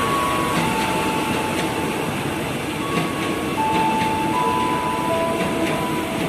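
Airport rail link electric train passing close by through the station: a loud steady running noise, with a few thin whining tones that step up and down in pitch and drop lower about five seconds in.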